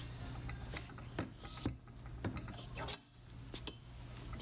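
Ratchet wrench working a bolt in a harness bar bracket clamped in a bench vise: a few separate metallic clicks and knocks over a steady low hum. The bolt is binding in a slightly bent mounting hole.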